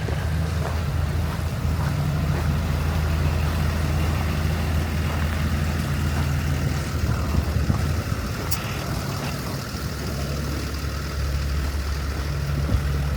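A vehicle engine idling with a low, steady hum.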